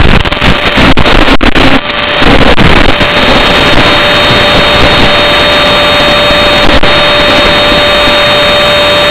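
Loud static hiss of an analog FPV video link that has lost the drone's signal. It breaks up and drops out for the first couple of seconds, then settles into a steady hiss with a steady high tone running through it.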